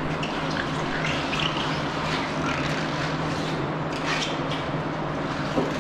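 Robotic milking unit and barn machinery running: a steady mechanical hum with a few short hisses and clicks, as the robot is set to start milking a cow.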